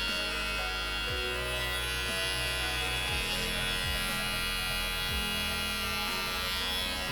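Cordless electric pet clipper buzzing steadily as it trims the fur on a dog's paw.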